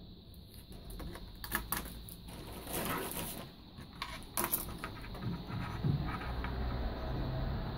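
Small clicks, taps and a brief scrape as wires, a utility knife and heat-shrink tubing are handled on a workbench, with a low hum in the second half.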